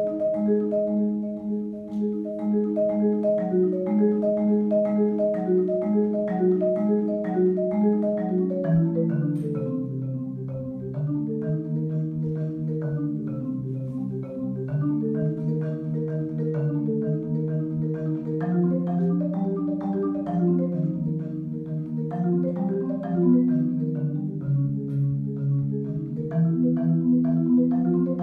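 Solo marimba played with four yarn mallets: a continuous stream of struck notes sounding together as chords. The line sits in the middle register, moves lower about a third of the way in, and rises again near the end.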